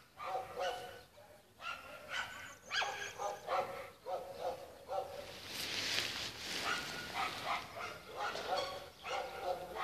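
A dog barking over and over in short, quick barks. A brief rush of noise swells and fades about six seconds in.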